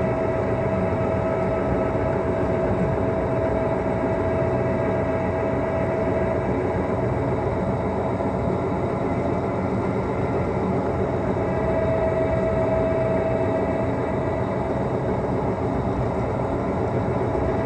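Rail maintenance vehicle running along the track, its engine and running gear making a steady, even noise. A steady high whine sits on top and fades for a few seconds midway before returning.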